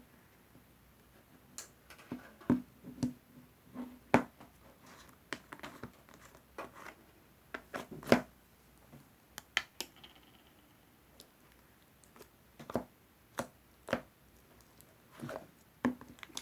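Slime being worked by hand: irregular sticky pops and clicks as it is pressed, folded and stretched.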